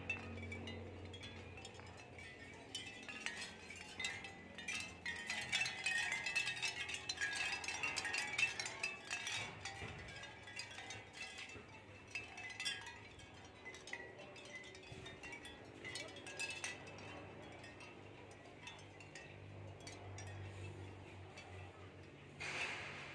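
Capiz shell wind chime: thin shell discs clinking against one another as they sway, in a flurry of light clicks that is busiest a few seconds in and thins out to scattered clinks later.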